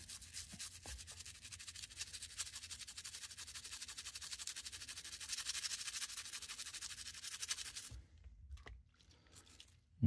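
Toothbrush bristles scrubbing the metal blade of a Swiss Army knife: rapid back-and-forth scratching strokes that stop about two seconds before the end.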